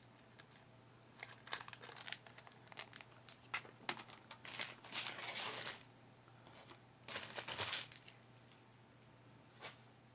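Packaging being handled while jewelry is unwrapped or set aside: several short spells of crinkling rustle, the longest about halfway through and again a little later, with scattered light clicks.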